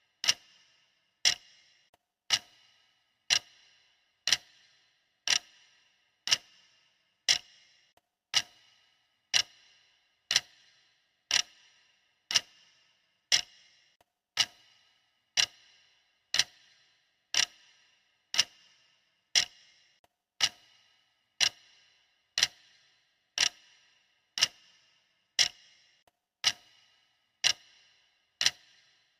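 Clock-style ticking of a stopwatch timer, one sharp tick about every second, each with a short ringing tail.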